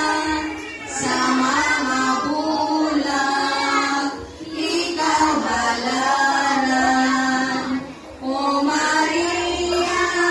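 Children singing a slow devotional hymn together, one melody with long held notes, in phrases of three to four seconds with short breaks between.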